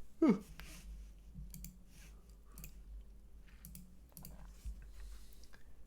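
A short falling tone just after the start, then scattered faint clicks of a computer mouse and keyboard over a low hum.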